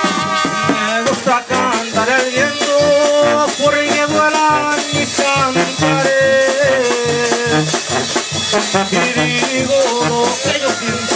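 Live tamborazo band playing an instrumental passage: trumpets and sousaphone hold brass melody lines over a steady beat of tambora bass drum and cymbal.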